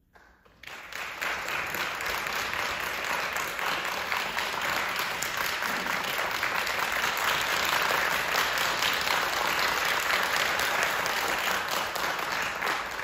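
Audience applauding, beginning about half a second in and swelling quickly into steady, sustained clapping.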